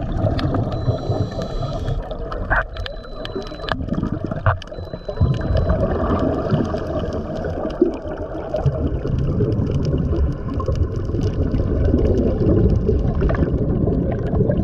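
Muffled underwater water noise, heard by a camera submerged in the sea: a continuous gurgling rush with scattered sharp clicks.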